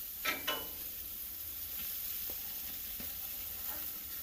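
Sausage frying in oil on a Blackstone flat-top griddle, a steady sizzle. A brief louder sound comes just after the start, and there are a few faint ticks later on.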